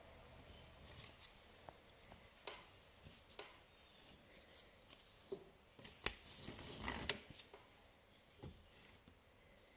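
Quiet handling sounds at a rigid heddle loom: weft yarn drawn and rubbed against the warp threads, with scattered light clicks and one longer rasping pull about six seconds in that ends in a sharp click.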